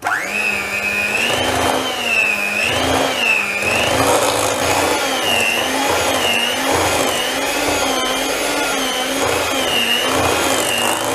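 Electric hand mixer switched on and beating thick cream cheese and butter frosting, its motor whine wavering up and down in pitch about once a second.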